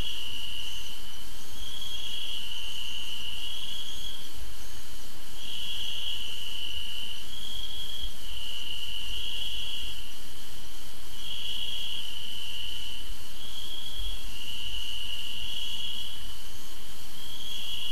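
Crickets chirping: high-pitched trills of uneven length in a pattern that repeats about every five and a half seconds.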